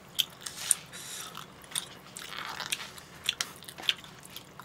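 Close-up eating sounds: food being bitten and chewed, with several sharp clicks and taps scattered through.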